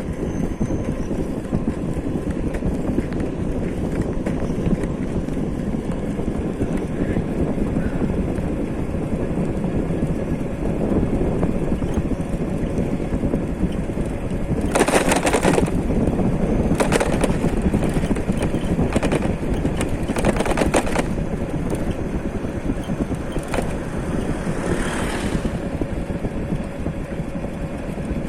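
Steady rumble of a moving vehicle with wind on the microphone. A run of rapid rattling clatter comes about halfway through, followed by a couple of single knocks.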